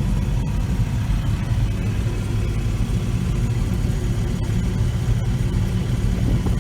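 Vehicle engine running steadily at an even speed: a constant low drone with a few steady tones above it.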